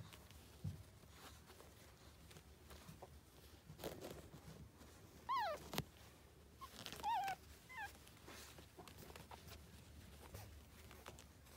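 Newborn Maltese puppies squeaking and whimpering: a few short, high, thin calls, one sliding down in pitch about five seconds in and a wavering pair around seven seconds in.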